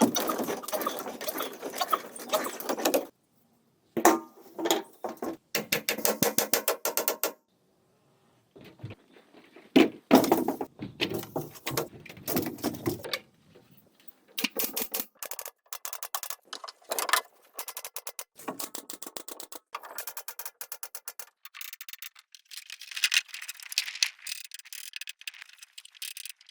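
Hand work on bamboo: repeated clattering, knocking and scraping of bamboo poles and tools in separate bursts, with abrupt cuts to silence between some of them.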